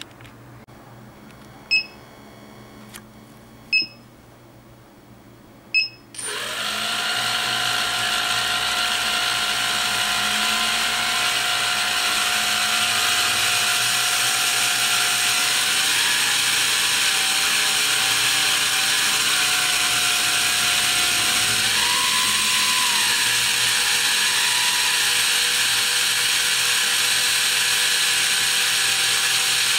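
Three short electronic beeps about two seconds apart, then a quadcopter's brushless motor spins up about six seconds in and runs steadily with a high whine and a rush of air, its speed stepping up briefly past the middle. It is being run so its vibration, and so its balance, can be checked.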